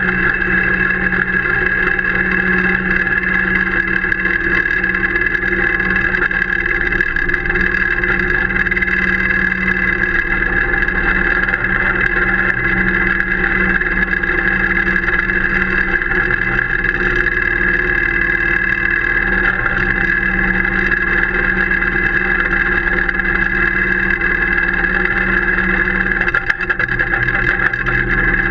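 Engine of the machine drawing a GKB turf brush over an artificial pitch, running steadily with no change in pace. The footage is sped up eightfold, which turns it into a high, even drone.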